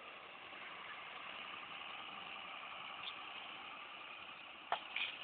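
John Deere 6520 tractor engine running steadily while it pulls a Claas twin-rotor hay rake. A single sharp knock comes near the end.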